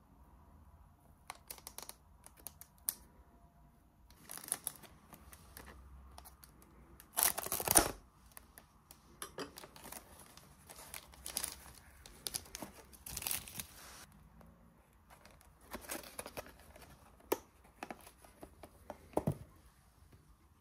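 Thin clear plastic clamshell food pack crackling and crinkling in the hands in uneven bursts as its sticker seal is peeled off and the lid pried open, loudest a little after seven seconds in.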